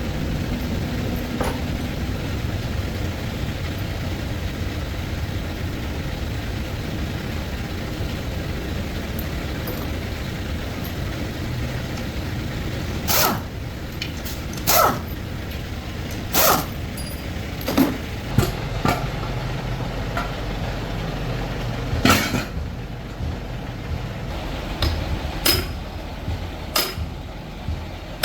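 Metal tools and parts clinking and knocking during truck differential work, a dozen or so separate sharp strikes starting about halfway through, over a steady low rumble that fades somewhat in the second half.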